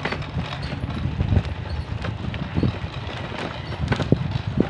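Riding noise on a moving bicycle: wind rumbling on the microphone, with scattered small rattles and knocks.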